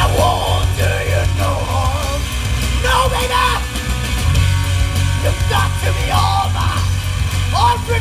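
Loud live rock band of electric guitar, bass guitar and drums playing an instrumental section, the guitar taking a lead line with bending notes over a driving bass and drum groove.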